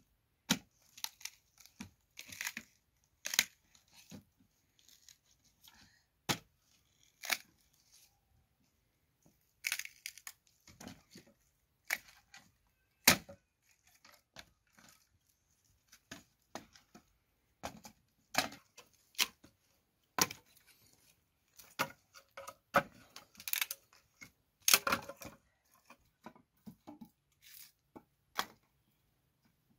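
Small hatchet chopping and splitting dry boards into kindling: irregular sharp cracks and splintering, some strikes single and some in quick clusters, with short pauses between.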